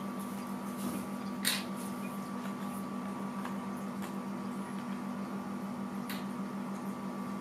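Steady low electrical or mechanical hum with faint hiss, broken once by a sharp click about one and a half seconds in.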